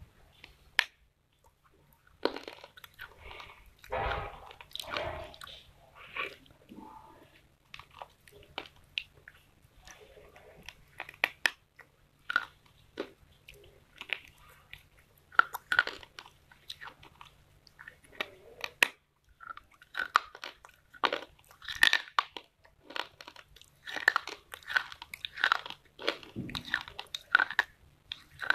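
A person biting and chewing pieces of a dry terracotta clay pot close to the microphone: irregular sharp cracks and gritty crunches, several a second, with short pauses between bites.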